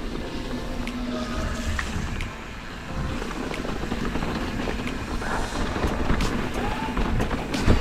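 Mountain bike rolling down a wet, rocky trail: tyres grinding over mud and stones, the bike rattling, with scattered clicks from bumps and a loud knock near the end.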